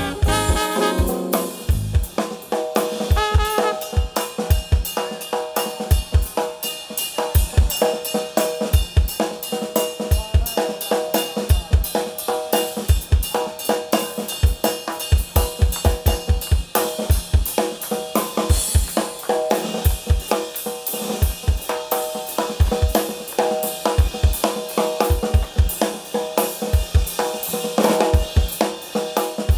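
Drum solo on a Sonor drum kit: a busy, loud rhythm of snare, kick drum, hi-hat and cymbals, with the horns dropped out.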